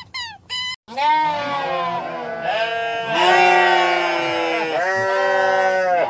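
A large herd of goats bleating, many calls overlapping without a break, starting about a second in. Before that, a quick run of short high calls falling in pitch cuts off abruptly.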